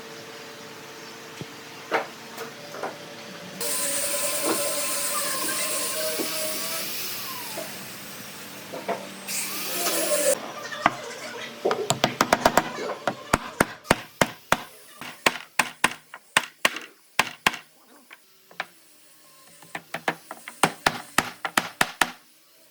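Woodworking shop sounds: a power tool runs with a loud hiss for about seven seconds, then a long run of sharp, irregular wooden knocks and taps, like a mallet or hammer striking wood.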